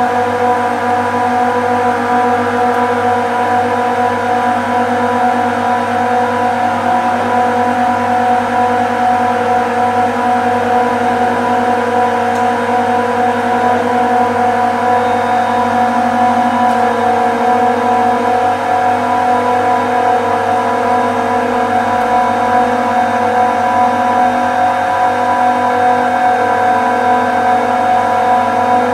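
Refrigeration compressors running: a loud, even machine hum with several steady tones.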